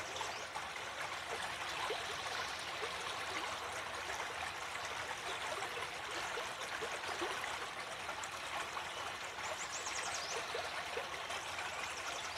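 Steady running water of a stream, an even rushing with small trickling ticks throughout.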